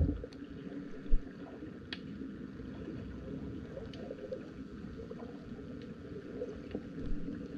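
Muffled water sloshing, with a few faint clicks and a dull thump about a second in.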